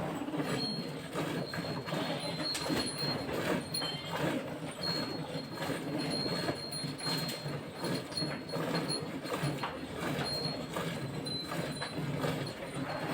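A cow being milked: a steady run of short, irregular strokes and swishes.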